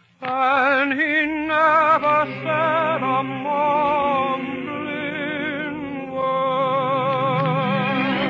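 A vocal group sings a spiritual on an old 1942 radio broadcast recording. After a momentary break at the start, a lead voice with a wide vibrato moves from note to note over sustained lower harmony.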